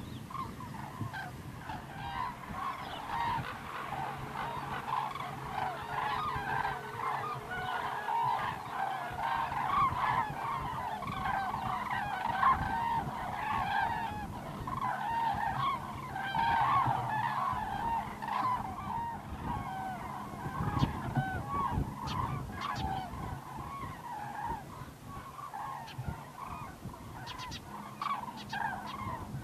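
A large flock of common cranes calling in flight, many birds at once, their calls overlapping without a break. A faint steady low hum runs underneath.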